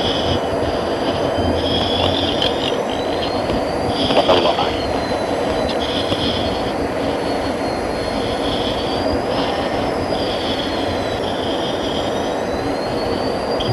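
Steady cockpit noise inside a flying F-16: a rushing hum of the jet engine and airflow, with a thin high whine that slowly wavers up and down in pitch and short hissing pulses every second or two.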